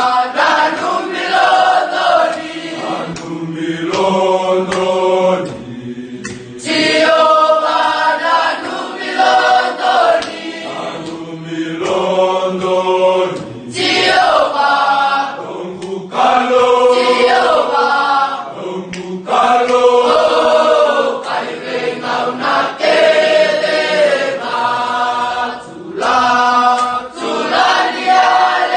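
A choir of students singing a devotional song together, phrase after phrase with short breaks between.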